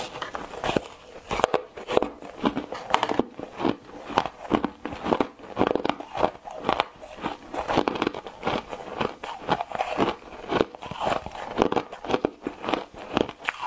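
Frozen green foam ice being bitten and chewed: a bite, then a long run of crisp, repeated crunches as the ice breaks up between the teeth.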